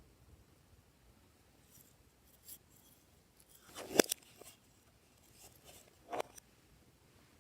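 Glossy slime being handled, giving a few short sticky pops and clicks, the loudest about four seconds in and another about six seconds in.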